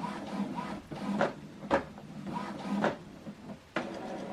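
Epson WorkForce inkjet printer's mechanism running through its ink check after new cartridges are fitted: a motor whirring with several clicks and clunks, then a steady motor run starting near the end.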